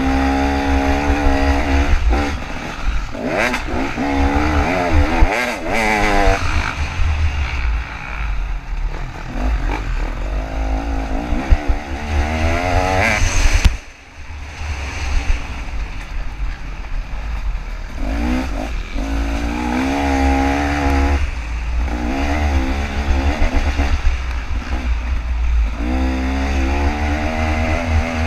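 KTM 300 two-stroke dirt bike engine revving up and down again and again as it is ridden hard, with clattering and knocks from the bike over rough ground. The engine drops off sharply for a moment about halfway through, then picks back up.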